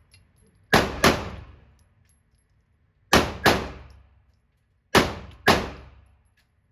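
Six gunshots fired in three quick pairs, each sharp crack trailing off in an echoing ring.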